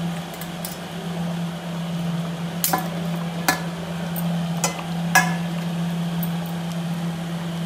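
A metal ladle clinking against a metal cooking pot, four sharp clinks in the middle, over a steady low hum.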